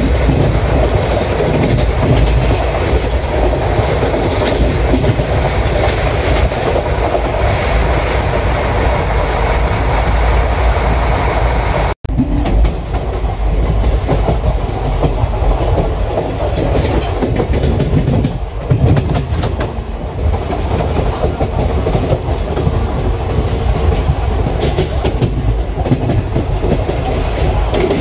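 Wheels of an ICF passenger coach running along the track: a steady loud rumble with the rhythmic clickety-clack of the wheels over rail joints. The sound drops out for an instant about twelve seconds in, then runs on with a little less hiss.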